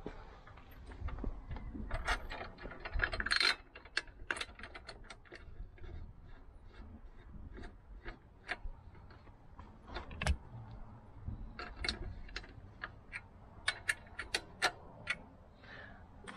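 Metal clicks and clinks of a steel saddlebag mounting bracket and its bolts being fitted by hand to a Harley-Davidson Street 500's fender strut. Irregular sharp ticks come throughout, with a brief scrape about three seconds in.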